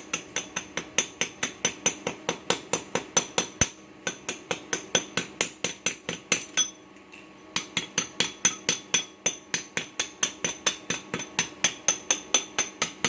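Hammer rapidly striking a freshly welded steel piece, about four sharp metallic blows a second, with a brief pause about two-thirds of the way through.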